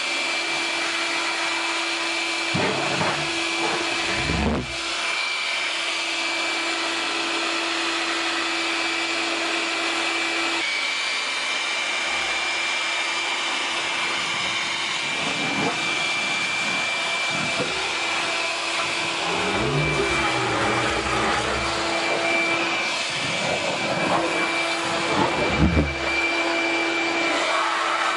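Electric leaf blower running steadily with a constant whine, forcing air into a home-built propane pulsejet. The jet sputters in scattered low puffs and thuds, a few seconds in and again in a cluster later on, but does not catch and run: the blower is held too close to the intake.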